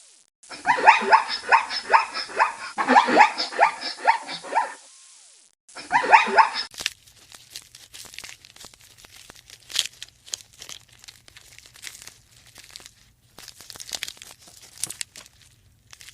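An animal giving rapid runs of barking calls, about four or five a second, in two bouts. Then, from about seven seconds in, only faint scattered clicks and rustling.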